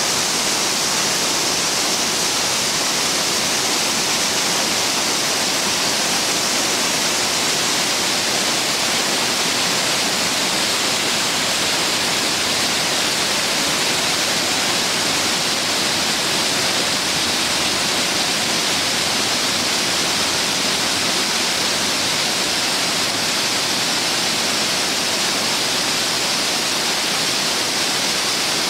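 Waterfall rushing steadily, an even hiss strongest in the upper range.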